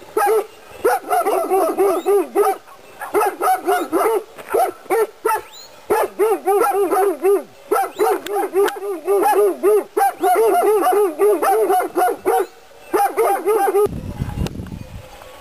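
Livestock guardian dogs barking in rapid volleys of several barks a second, broken by short pauses. The barking stops about a second before the end, and a brief low rumble follows.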